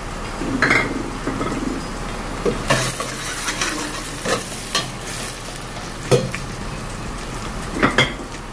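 Sliced onions frying in oil in a stainless steel pressure cooker, sizzling steadily. A spoon stirs them, knocking and scraping against the pot several times.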